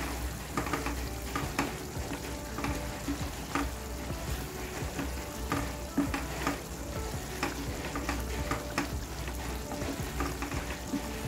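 Thick curry sauce simmering in a pan, with bubbles popping at irregular moments while a wooden spoon stirs through it.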